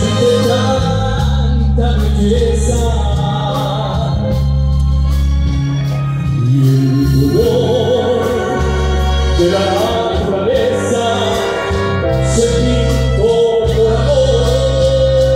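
Live orchestral music with singing: a sung melody wavers over held low bass notes that change every couple of seconds.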